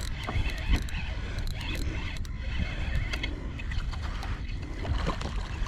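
Spinning reel being wound in steadily with a clicking ratchet sound while a hooked fish is played, over wind and water noise.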